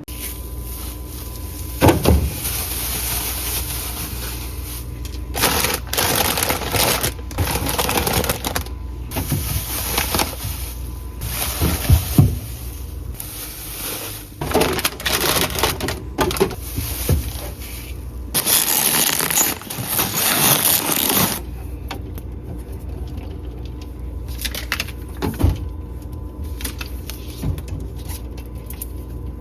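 Plastic grocery packaging rustling and crinkling in repeated bursts as groceries are handled and put away, with a few sharp knocks, the loudest about two seconds in and again near twelve seconds.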